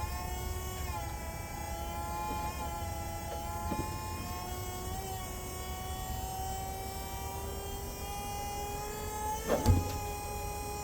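An engine running at a steady speed with a whining tone that slowly rises in pitch, and a single knock near the end.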